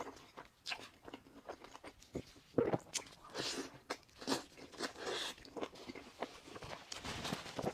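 Close-miked eating of a burger: bites and chewing with crisp crunching bursts at irregular intervals.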